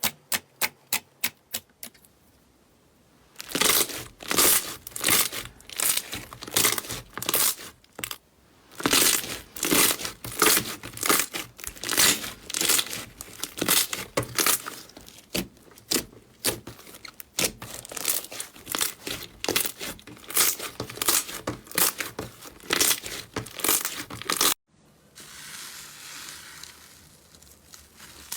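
Slime being squeezed, poked and stretched by hand, giving runs of rapid crackling and popping. A few sharp clicks open it, and near the end it cuts to a softer squishing.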